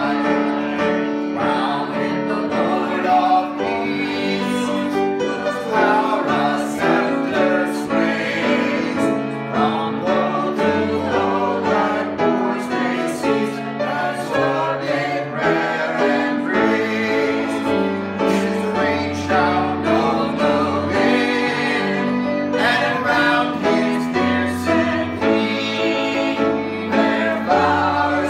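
A small group of men's and women's voices singing together, accompanied by piano.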